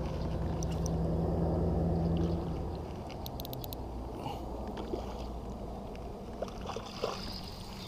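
Water gurgling and lapping against a plastic fishing kayak's hull, under a low rumble that eases after about two and a half seconds. A quick run of sharp clicks comes about three and a half seconds in.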